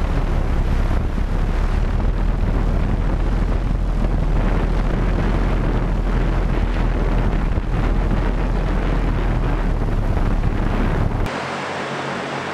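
Volocopter VC200's eighteen electric rotors hovering: a steady, loud rushing noise, with rotor downwash buffeting the microphone as wind noise. About a second before the end it cuts abruptly to a quieter, steadier hum of the rotors.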